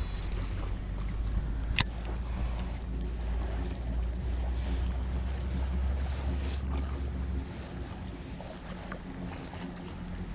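Wind and water noise around a small kayak: a steady low rumble that drops away about seven seconds in, with one sharp click about two seconds in.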